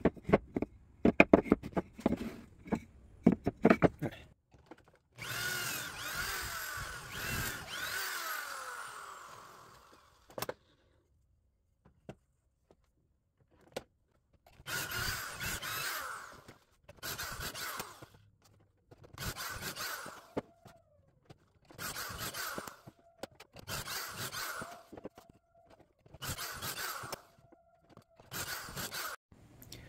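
Power drill boring pocket holes in pine boards. First a few knocks and clicks of wood being set in place, then one long run of about five seconds that winds down, then seven short runs of about a second each.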